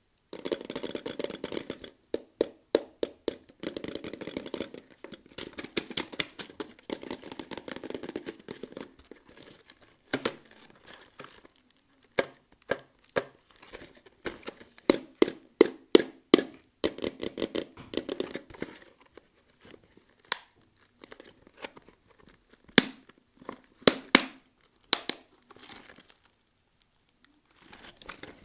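Candy packaging being torn open and crinkled by hand: stretches of dense crinkling full of quick clicks, then, over the last third, mostly separate sharp snaps and clicks.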